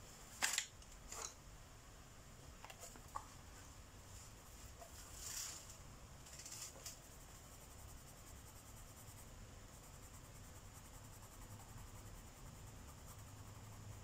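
Colored pencil on a coloring-book page and on the desk. There are a few light clicks in the first few seconds and a scratchy swish about five seconds in, then soft, faint pencil strokes over a steady hiss.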